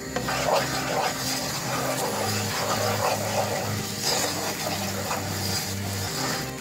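A wooden spoon stirring melting butter, powdered sugar and ground poppy seeds in a frying pan, over background music with a pulsing bass line.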